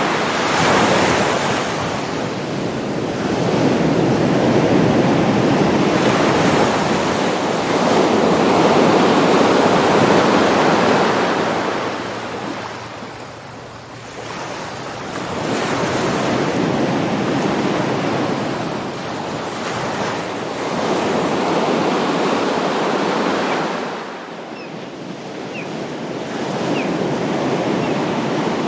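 Ocean waves breaking and washing on a shore: a steady hiss of surf that swells and ebbs in long surges every few seconds.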